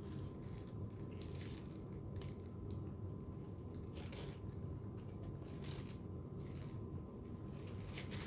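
Bites and chewing of a crispy fried chicken sandwich: about five short, soft crunches spread over a few seconds, over a steady low hum.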